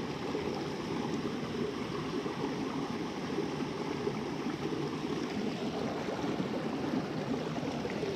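Mountain stream rushing steadily, a low, even sound of running water.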